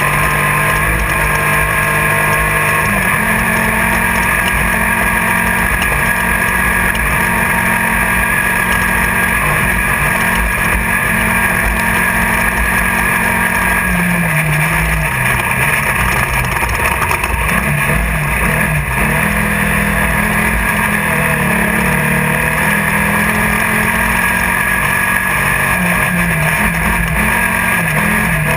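Class 1600 off-road race car's air-cooled 1600 cc Volkswagen engine running hard at speed, heard from inside the car over a loud steady rush of noise. The engine pitch dips and climbs again about halfway through, and once more a little later.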